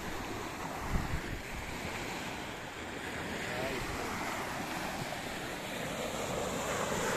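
Small waves breaking and washing up a sandy beach, a steady surf noise that swells and ebbs, with wind buffeting the microphone. A couple of low knocks about a second in.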